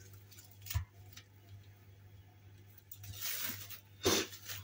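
Kitchen handling sounds: a light knock about a second in, then rustling and a sharper clatter near the end.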